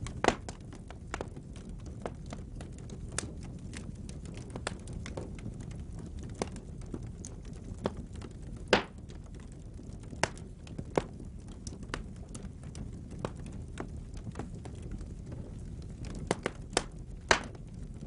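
Wood fire crackling in a fireplace: a steady low rumble of burning logs with irregular sharp pops and snaps, the loudest ones just after the start, near the middle and in a cluster near the end.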